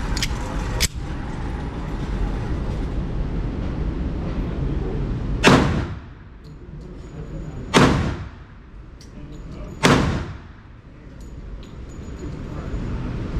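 Three gunshots fired at the range, a little over two seconds apart, each a sharp crack that dies away over about half a second. Two fainter cracks come in the first second.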